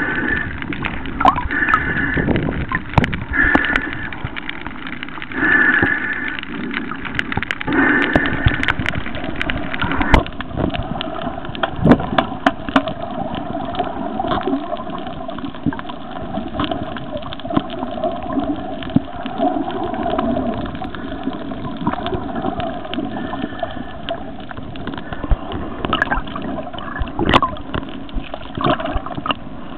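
Water sloshing and gurgling around the camera while snorkelling, with many sharp clicks and knocks. A steady hum joins about a third of the way in.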